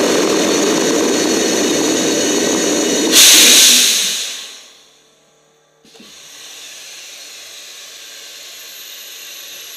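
A 5000 N liquid-oxygen/ethanol rocket engine firing steadily on a static test stand, then shutting down about three seconds in with a brief, louder burst of hiss that dies away over a second or two. After a click about six seconds in, a steady quieter hiss remains.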